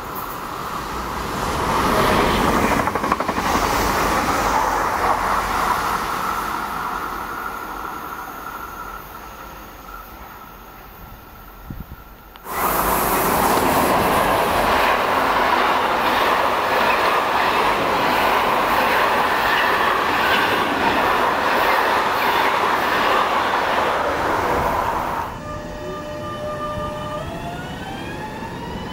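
Electric trains passing on the main line: an electric multiple unit swells and fades as it goes by, then a long timber freight train hauled by an electric locomotive runs past close by, loud and steady with wheel-on-rail noise. Near the end an electric multiple unit moves off close by, its traction motors whining upward in pitch as it accelerates.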